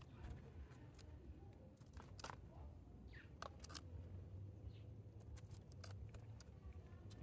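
Near silence: faint scattered sharp clicks and ticks over a low steady hum, with two faint short chirps.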